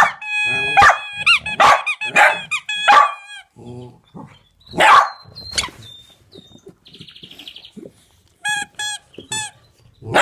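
A dog barking in a quick run of sharp, high-pitched barks, then one louder bark about five seconds in. Near the end come three short high-pitched yelps.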